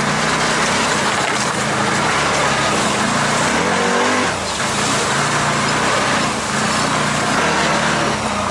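Small engine of an off-road vehicle running steadily while driving along a trail, with wind and ground noise over it; the engine note wavers briefly about four seconds in.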